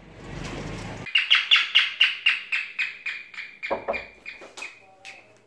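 Street traffic noise for about a second, then a fast run of high, bird-like chirps, about four a second, that slow down, fade and sink slightly in pitch. A dull thud comes partway through.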